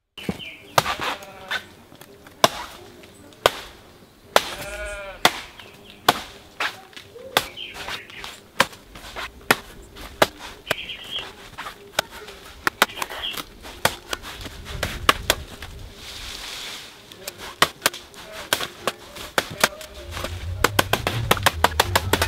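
A blade chopping repeatedly into the base of a coconut palm trunk, about one stroke a second, quickening into a fast flurry of strokes near the end. The trunk is rot-softened and spongy.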